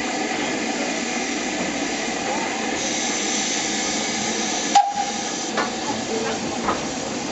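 Steady hiss of escaping steam from a Southern Railway Schools class 4-4-0 steam locomotive, with one sharp metallic clank about five seconds in.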